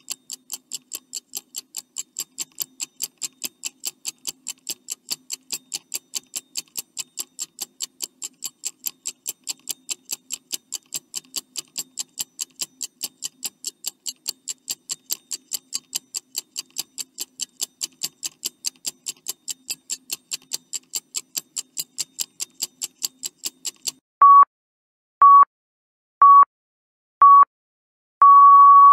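Countdown timer sound effect: quick, even clock ticking that stops about four seconds from the end, followed by four short electronic beeps a second apart and a longer final beep, signalling that time is up.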